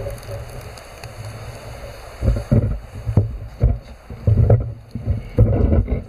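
Wind buffeting the microphone: a low rumble that surges in irregular gusts from about two seconds in.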